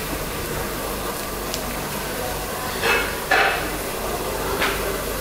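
Steady kitchen background hum and hiss, broken by a few brief light knocks or clinks: two in quick succession about three seconds in and one more near the end.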